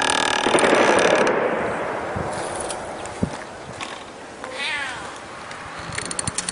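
Cats yowling: a loud, harsh drawn-out cry in the first second or so, then a short meow about two-thirds of the way in. A rapid rattling clicking comes in near the end.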